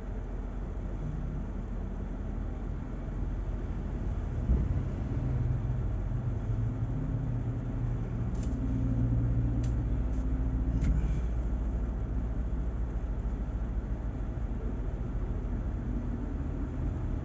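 Low, steady rumble of a car's engine and road noise heard from inside the cabin in slow traffic, the engine hum growing louder from about four seconds in and easing after about eleven. A single thump about four and a half seconds in, and a few light ticks a little later.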